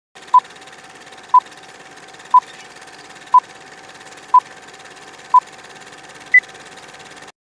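Film-leader countdown sound effect: a short beep once a second, six times, then a single higher-pitched beep near the end, over a steady hiss and hum like an old projector.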